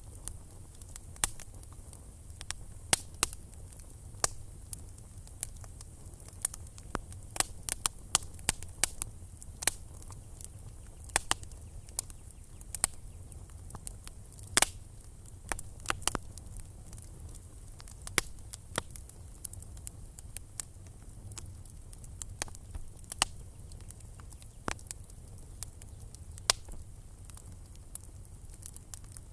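Campfire burning: irregular sharp crackles and pops over a steady low rumble of the flames.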